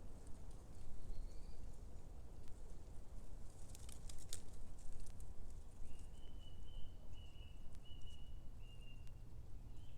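Dry oak leaves in the leaf litter rustling and crackling faintly, with a cluster of crackles about four seconds in, over a low background rumble. From about six seconds to near the end a bird gives a thin, high, steady note with small breaks, after a short rising note near the start.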